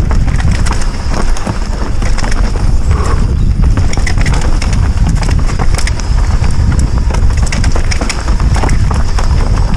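Orbea Rallon mountain bike clattering and rattling hard over a rough descent, with many sharp knocks over a heavy rumble of tyres and wind on the helmet camera's mic. The weird sounds come from the drivetrain: the rider reports a dropped chain that wedged in behind the chain guide.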